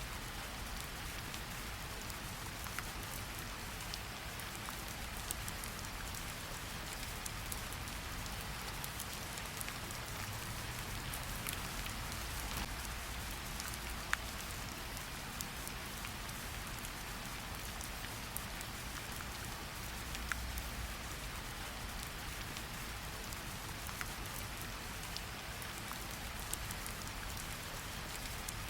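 Steady rain hiss with a low rumble underneath and scattered sharp crackles and pops from a wood fire, the sharpest about halfway through.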